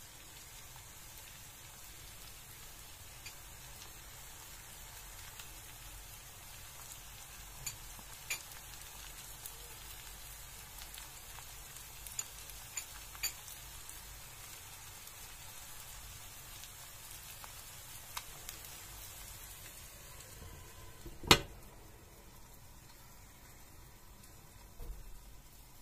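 Leeks and eggs sizzling in oil in a frying pan, with scattered small pops. Near the end a sharp clank as a glass lid is set on the pan, after which the sizzle is muffled.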